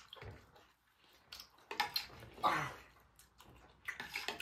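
Metal forks and spoons clicking and scraping against ceramic plates as noodles are eaten, a few scattered ticks, with a short, louder breathy burst about halfway through.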